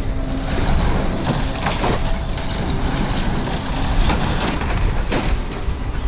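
Heavy construction machinery running during building demolition, a steady rumble with several sharp crashing or scraping strikes about two, four and five seconds in.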